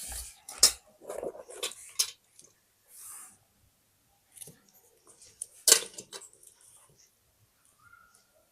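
Paper and stationery being handled for scrapbooking: scattered rustles and light taps, a brief hiss of paper sliding, and one sharp click a little past halfway.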